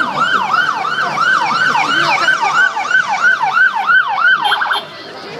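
Police motorcycle siren on the yelp setting: a loud, rapid rising-and-falling sweep repeating about three to four times a second. Shortly before the end it switches briefly to a faster pulsing tone, then cuts off.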